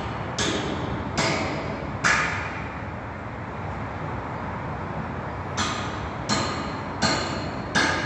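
Hammer blows on steel at a roller coaster support joint, each strike sharp and ringing briefly. Three strikes come about a second apart, then after a pause of about three seconds four more follow at the same pace.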